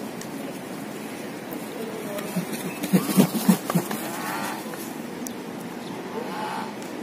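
Large waterfowl honking: a quick run of five or six loud, low honks about three seconds in, followed by higher calls twice after it.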